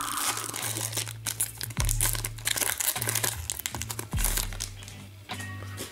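A foil trading-card pack being torn open and crinkled by hand, a stream of quick crackles. Background music with deep bass notes that come in about every two and a half seconds plays underneath.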